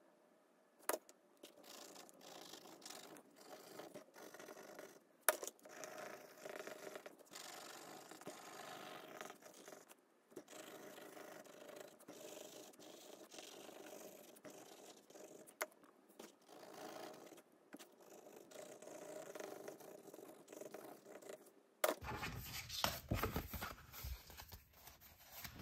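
A red crayon scratching across a coloring book page in continuous strokes, with short pauses and a few sharp taps. Near the end it gives way to louder rustling as a paper sticker book is picked up and handled.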